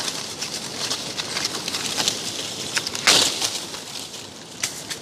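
Leafy branches of an ackee tree rustling and shaking as someone climbs in it picking pods, with a louder burst of rustling about three seconds in and a few sharp clicks of twigs or stems.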